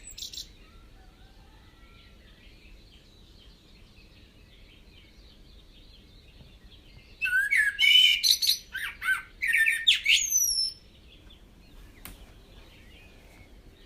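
Wild birds calling: faint chirping throughout, then a loud bout of sharp chirps and gliding whistles from about seven to eleven seconds in.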